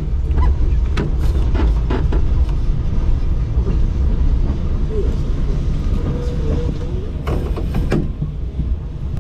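SW6-class tram running along the track, heard from inside the cab: a steady low rumble with a few sharp knocks and clatter, twice near the start and again a couple of seconds before the end.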